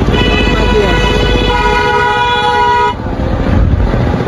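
Vehicle horns honking in stalled traffic. One steady horn sounds for about three seconds, a second, higher horn tone joins about a second and a half in, and both cut off together. A low engine rumble runs under the first half.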